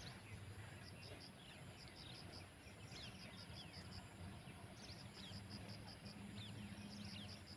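Faint rural ambience: an insect chirping in runs of quick, evenly spaced high pulses, with scattered short falling bird calls over a low steady hum.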